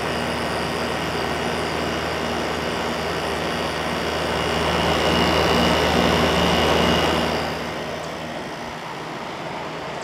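2012 General Electric 8000 BTU window air conditioner (AEW08LQQ1) running with compressor and fan on: a steady low hum under the rush of the fan, quite quiet. It grows a little louder in the middle and eases off about three-quarters of the way through.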